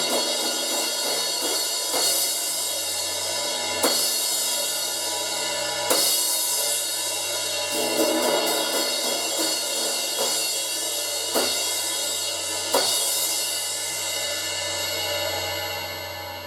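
Paiste Signature 16-inch Fast Crash cymbal struck about every two seconds, its wash ringing on between hits. Near the end it is left to ring and fades away.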